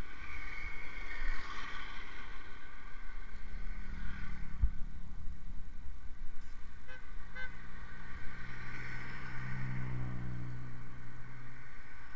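Motorcycle engine running on the road over a constant low rumble, its note growing louder and rising between about 8 and 11 seconds in, with a single sharp thump about four and a half seconds in.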